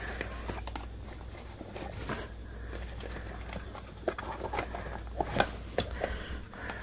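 Rustling of a fabric tote bag and small knocks of boxes of ammunition against each other as a hand rummages inside it, with a few sharper clicks about five seconds in.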